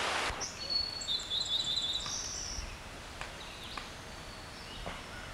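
Rushing river water that cuts off abruptly a fraction of a second in, followed by quiet outdoor ambience with songbirds giving several short high whistles and chirps in the first couple of seconds.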